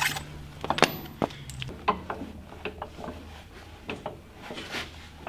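Scattered clinks and knocks of hand work on an off-road buggy's front suspension and wheel, with a low steady hum that stops about a second and a half in.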